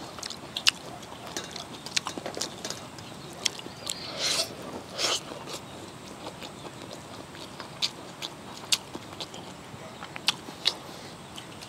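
People eating by hand from metal plates: chewing, with many small clicks and taps scattered throughout and two short louder noises a little after four and five seconds in.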